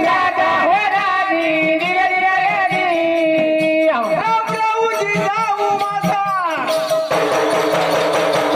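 Folk singing of a Marathi powada: a singer holds long, wavering melodic notes over a steady musical drone. About seven seconds in, dense percussion suddenly comes in.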